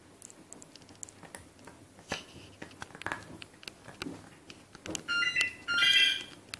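Maltese puppy gnawing a chew toy, with scattered clicks of teeth on the toy. Near the end come two short, loud, high-pitched squeaks, each holding a steady pitch.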